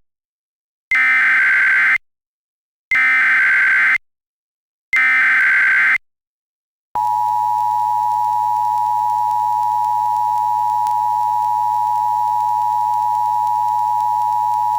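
Emergency Alert System SAME header: three bursts of data tones about a second long, each followed by a second of silence. The steady two-tone attention signal follows for about eight seconds. Together they announce a tornado warning.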